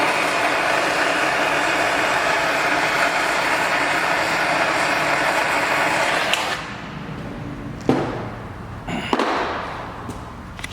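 Gas blowtorch flame roaring steadily as it heats a brake disc, shut off about six seconds in, followed by a few light knocks and clicks.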